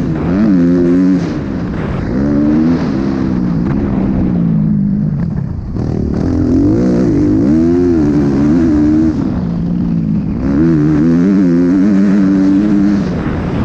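Motocross bike engine heard from the rider's onboard camera, revving up and down over and over as the rider opens and rolls off the throttle and shifts, with brief drops in pitch between pulls.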